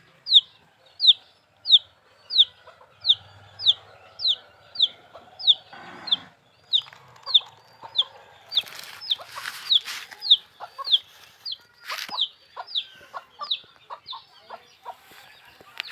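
Baby chicks peeping: a steady, regular run of loud, sharp peeps that fall in pitch, about one and a half a second, with fainter peeps from other chicks and a few brief scratchy noises around the middle.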